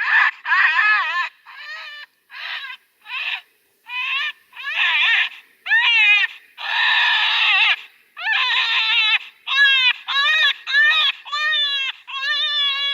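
Predator call playing an animal distress sound to lure coyotes: a run of high, wavering, screaming cries, longer at first, then shorter and quicker, about two a second.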